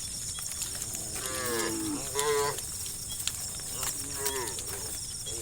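Cows mooing in a herd: three moos, the first two back to back about a second in, the third about four seconds in.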